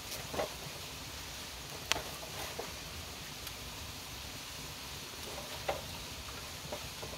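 Wood campfire crackling: a few sharp pops, one louder than the rest, over a steady faint hiss.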